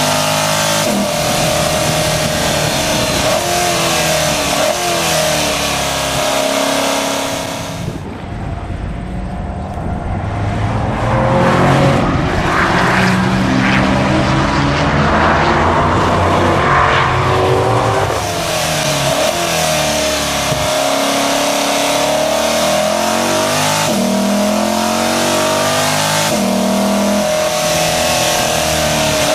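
C8 Corvette Stingray's 6.2-litre V8 running hard on track, its pitch repeatedly climbing under throttle and dropping with gear changes and lifts. From about 8 to 18 seconds in, it is heard from the trackside as the car drives a corner, louder and rougher, before the close, on-board sound returns.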